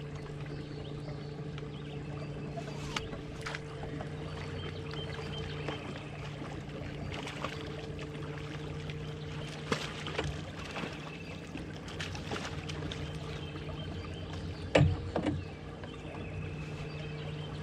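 A boat motor hums steadily at one pitch under a haze of water noise against an aluminum jon boat. A few sharp knocks sound on the hull, the loudest a pair of thumps near the end.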